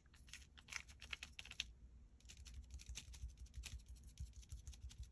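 Faint quick tapping of a small sponge dabbing acrylic paint through a plastic stencil onto a card, in two runs with a short pause about two seconds in.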